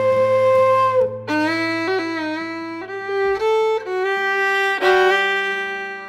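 Folk ensemble playing a two-part march tune, with the fiddle to the fore over wooden flute, mandolin and guitar. A long held note gives way, after a brief break about a second in, to a run of quick stepping notes.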